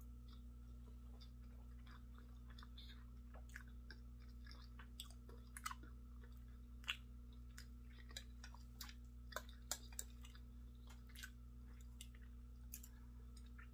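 Close-miked chewing of a person eating creamy grits, scrambled eggs and sausage: irregular wet mouth clicks and smacks, loudest around the middle, over a steady low hum.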